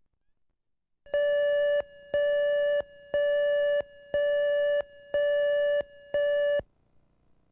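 Countdown leader beeps: six identical steady tones, each a little over half a second long, one a second, after which they stop.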